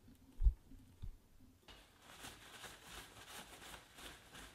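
Two dull bumps in the first second, then from about a second and a half in a rustle of cloth rubbing in quick strokes, about three a second.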